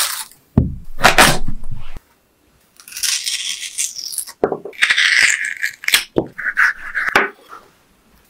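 Plastic bag rustling as raw potatoes are handled. Then a small metal spoon scrapes and scoops out the inside of a peeled raw potato in several strokes, with a break in between.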